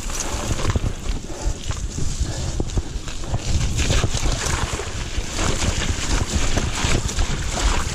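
Wind buffeting the microphone over the rumble of a mountain bike rolling down a rocky dirt trail, with many quick knocks and rattles from the bike.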